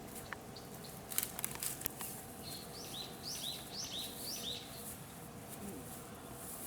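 A small bird calling a run of about five quick, high two-part chirps, each a higher note followed by a lower one, starting a couple of seconds in. A few sharp clicks come just before it.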